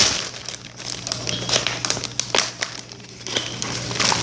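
Scattered light taps and crinkling from items being handled, over a steady low hum.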